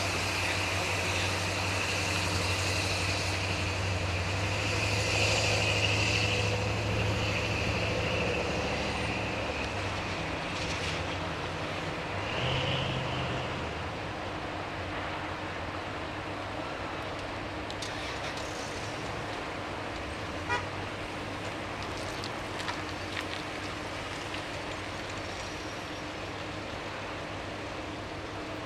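Motor vehicle engine running with a steady hum, which fades away about halfway through, over a steady background rushing noise.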